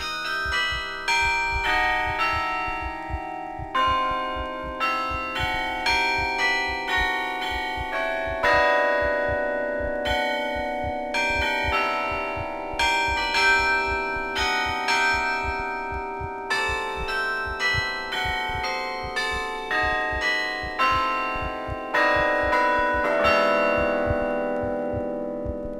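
Carillon bells played from the baton keyboard: a quick succession of struck bell notes that overlap and ring on, with low knocks from the keyboard action underneath. Near the end the playing stops and the last notes ring away.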